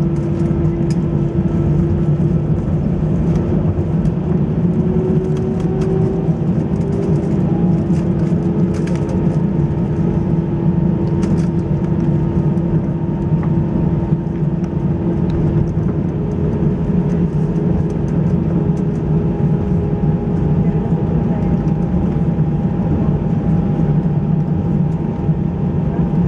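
Airbus A320 cabin noise: the jet engines running at a steady low power, a deep drone with a few steady whining tones, with faint scattered clicks and rattles from the cabin.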